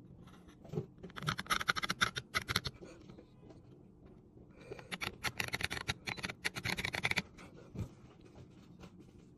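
Seal-carving knife cutting single-stroke lines into a stone seal face: a rapid, gritty scratching in two spells, the second longer, with a few single ticks of the blade between them.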